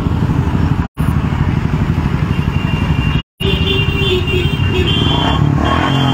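Engines of a group of motorcycles and scooters running at low rally speed, a dense rumble. The audio cuts out completely twice, briefly, about a second in and about three seconds in, and after the second cut a steady high tone runs alongside the engines.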